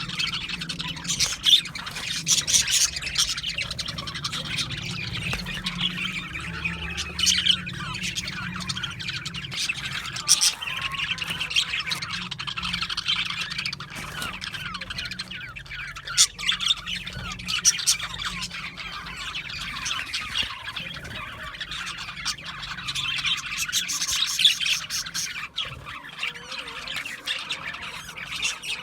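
A flock of budgerigars chattering and chirping continuously, with many overlapping warbles and frequent short sharp squawks.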